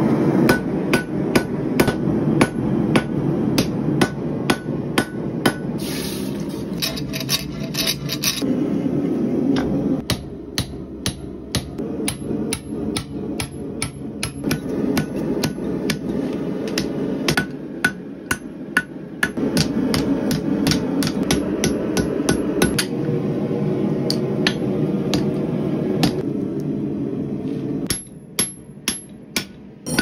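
Hand hammer striking red-hot steel bar on an anvil, sharp blows at about three a second with a short ring after each, while forging a barn door hinge. Underneath runs a steady low rush from the propane forge burner, which drops away near the end.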